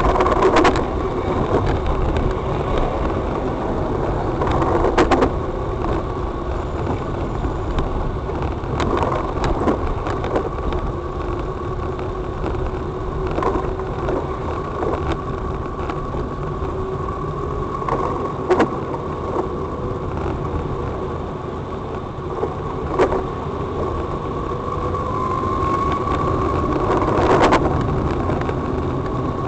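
Car running along a road: a steady engine and road rumble, broken by a sharp knock every few seconds.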